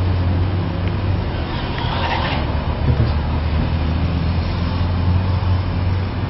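Steady low rumble of an idling car engine, with faint muffled voices about two seconds in.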